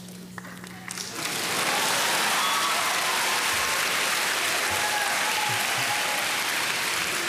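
Theatre audience applauding, breaking out about a second in and holding steady.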